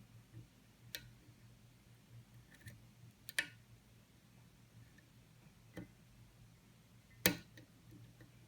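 Small sharp clicks of a hook pick working the pins of a Dexter pin-tumbler lock under a tension wrench: four or so scattered clicks, the loudest near the end, over a faint steady low hum.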